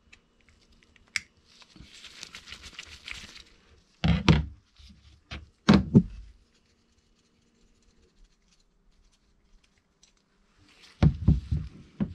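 A screwdriver working the main jet out of a small carburettor: a click, a short scraping, then two dull knocks a couple of seconds apart and small metal ticks as the parts are handled, with another cluster of knocks near the end.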